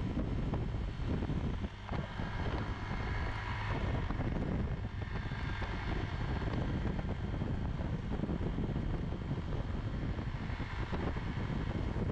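Yamaha Zuma 125 scooter's single-cylinder four-stroke engine running steadily while riding along a road, with wind rushing over the camera's microphone.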